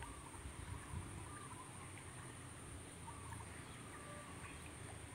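Faint rural outdoor ambience: a steady high-pitched insect drone, faint scattered bird calls and a low rumble.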